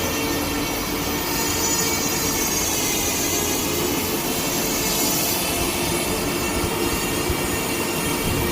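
Automatic film slitting and rewinding machine running at speed: a steady mechanical whir with several steady whining tones over it.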